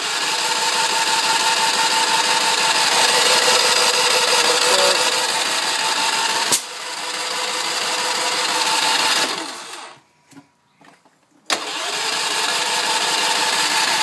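Portable inverter generator's starter cranking the engine steadily for about nine seconds, then again for a few seconds after a short break, without the engine catching: a no-start.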